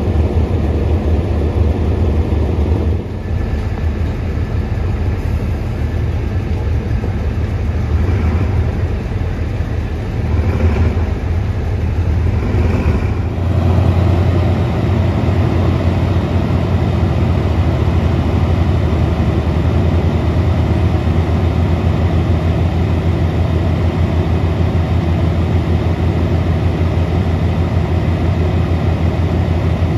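Diesel locomotive engine running close by, a steady low drone that grows a little louder about thirteen seconds in.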